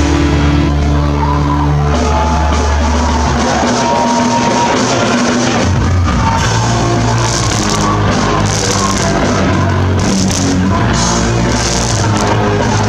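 Live hardcore punk band playing loud, dense music, with heavy bass notes held through the first few seconds.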